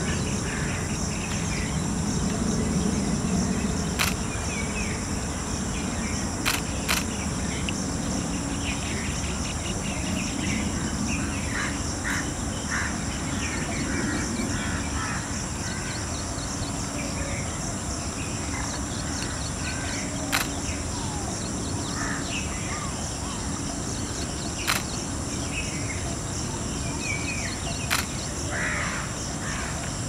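Outdoor nature ambience: assorted bird calls and chirps over a steady high-pitched insect drone, with a few sharp clicks scattered through it.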